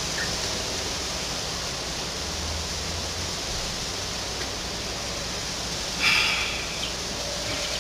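Steady hiss of background noise, with a brief louder burst of noise about six seconds in.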